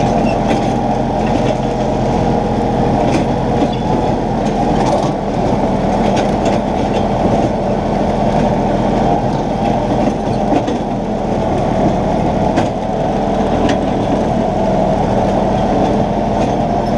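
Compact tractor running steadily under load while mowing: a constant low engine hum with a rattling clatter, and scattered sharp clicks throughout.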